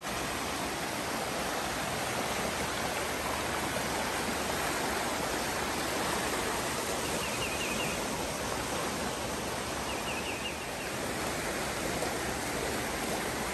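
Creek water rushing steadily over rocks and small rapids, a constant even rush. Short, faint high chirps come through twice, about halfway through and again a few seconds later.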